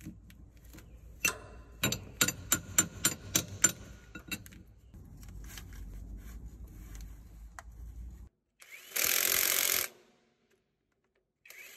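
A run of sharp metallic clicks from hand work on the machine, then a cordless impact wrench running in one short burst of under a second near the end, on a bolt of a hydraulic valve block.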